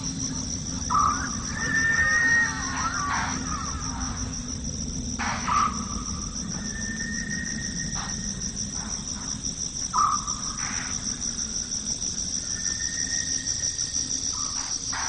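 A steady, high, pulsing chorus of night insects such as crickets. About three times, roughly every four to five seconds, a separate call sounds over it: a short note followed by a held, higher tone.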